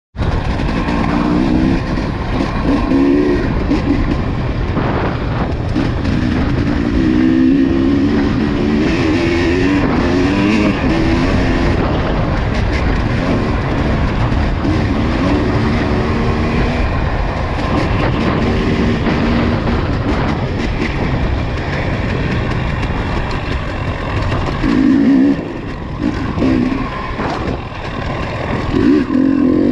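ATV engine running under changing throttle while riding, its pitch rising and falling over a constant rumble; it eases off for a few seconds near the end, then picks up again.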